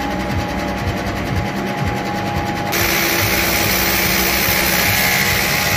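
Sliding-table panel saw running after start-up, its motor and blade giving a steady whine. About three seconds in, a louder, steady rushing noise joins it suddenly.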